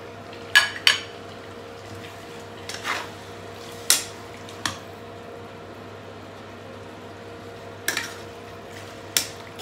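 A metal spoon clinking and scraping against a metal pot as cubed raw pork is stirred: several sharp, irregular clinks a second or so apart. A steady hum runs underneath.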